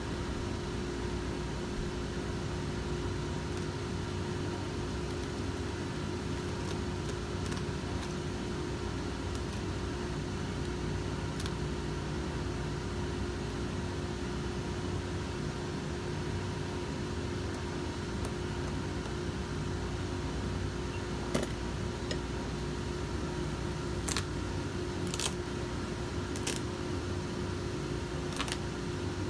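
Steady mechanical hum of shop machinery, with a few faint clicks from a razor knife cutting a boot's old leather sole loose from the welt.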